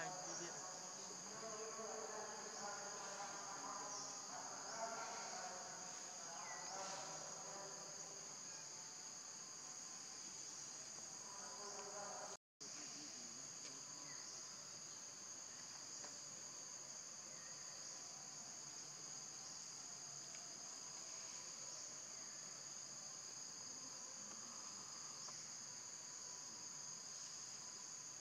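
Steady, high-pitched insect chorus of forest insects droning without a break, sitting in two high bands of pitch. The sound cuts out completely for an instant about twelve seconds in, then the drone carries on unchanged.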